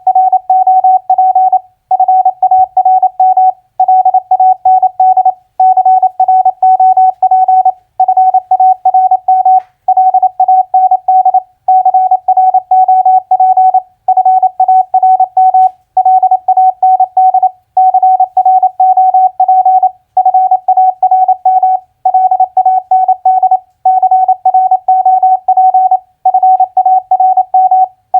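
Morse code at 28 words per minute: a single steady mid-pitched tone keyed in rapid dots and dashes, spelling four-letter words with a short pause after each word, about one word every two seconds.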